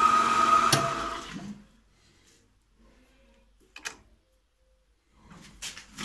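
2M112 Komunar drill press motor and spindle running, switched off with a click about three-quarters of a second in and winding down to a stop within about a second. Then a short click and some handling knocks at the vise and chuck near the end.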